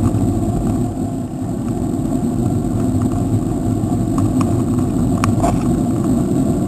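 Steady low rumble of wind on the microphone and road noise while riding a bicycle, with a few light clicks about four to five seconds in.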